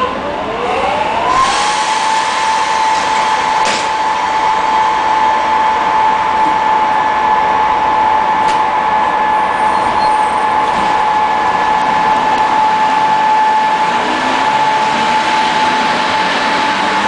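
Czech Railways class 460 electric multiple unit: a whine from its on-board equipment climbs in pitch over the first second or two, then holds steady, over a constant machinery hum with a couple of sharp clicks. Near the end the unit starts to move off.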